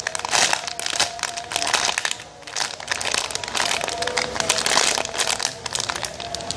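Plastic crinkling and rustling in quick, irregular bursts as a squishy in its plastic wrapping is handled.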